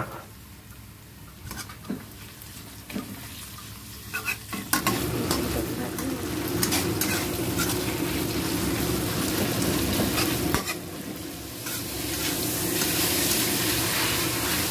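A metal spatula clicks a few times against a wok. About five seconds in, a loud, steady sizzle starts as marinated sliced beef fries in hot oil, with the spatula scraping and tossing it around the pan.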